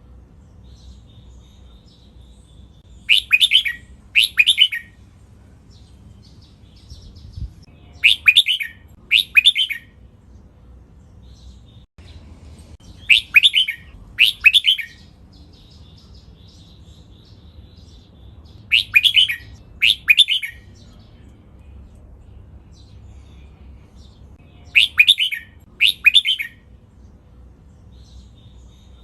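Red-whiskered bulbul singing a loud doubled song phrase, two quick bursts a second apart, five times about every five to six seconds. Soft twittering comes between the phrases.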